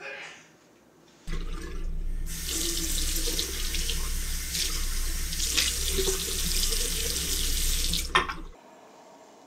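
Bathroom tap running into a washbasin, with hands rinsing under the stream. The water comes on about a second in and stops abruptly near the end.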